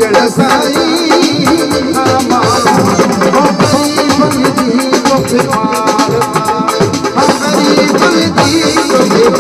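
Loud music with a steady beat of rattling percussion and drums.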